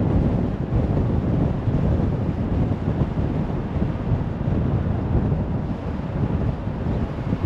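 Steady road noise of a car driving at speed on a motorway: tyre rumble and wind rushing past, with no distinct engine tone or separate events.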